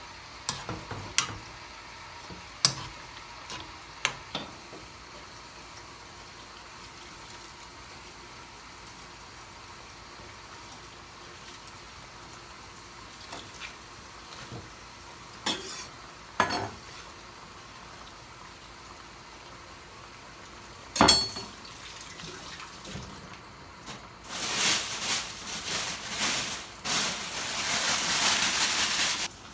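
Home kitchen cooking: utensils clicking and knocking against pots and dishes over a faint steady sizzle, with a sharper clank about 21 seconds in. Near the end a loud frying sizzle starts and keeps up in uneven surges, as food is stirred in a hot pan.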